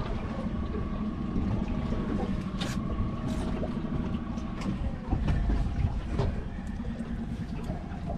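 Boat engine running steadily at low speed, with wind and water noise and a few light knocks about three seconds in.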